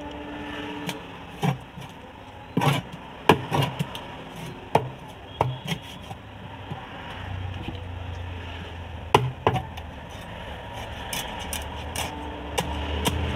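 Heavy cleaver chopping through a whole fish on a wooden chopping block: sharp irregular thuds, some in quick pairs, over a steady low hum.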